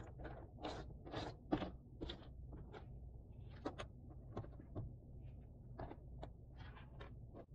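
Cardboard jigsaw puzzle pieces being handled: irregular rustling, scraping and light clicks as pieces are slid and shuffled, with a sharper click about one and a half seconds in.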